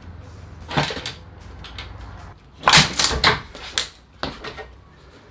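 125cc four-stroke single being kicked over with its kickstart lever: a series of clattering kicks, loudest about three seconds in, with the engine turning over but not catching.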